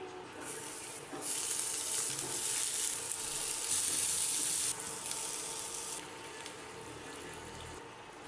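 Food frying and sizzling in a hot pan. The hiss swells about a second in, then drops off sharply partway through and fades lower still.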